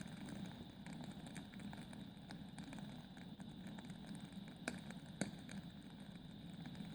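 Wood fire burning in a fireplace: logs crackling with scattered small pops over a steady low rumble of the flames, and two louder pops about five seconds in.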